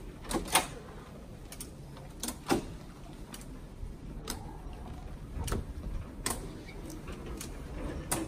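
Metal underarm crutches clacking and knocking on a hard floor as a patient swings along on them, an irregular sharp click about every second.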